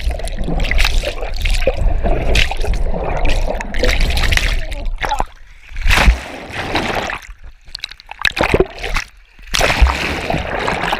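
Pool water splashing and sloshing around a camera held underwater, with a few sudden low thumps, the loudest about six seconds in, and briefly quieter stretches in the second half.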